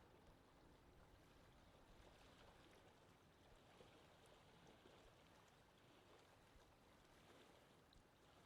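Very faint, steady outdoor water ambience: a low, even rush with a few faint ticks.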